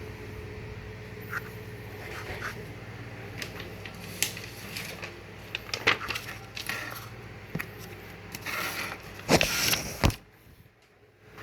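Hands handling packaging: scattered clicks and scrapes, then a louder crackling rustle near the end, over a steady low hum that cuts out suddenly about ten seconds in.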